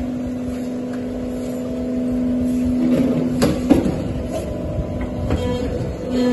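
Hydraulic plastic injection moulding machine running through its cycle: a steady hum from the hydraulic pump under load, which shifts about three seconds in, with two sharp knocks just after as the cycle moves to its next stage.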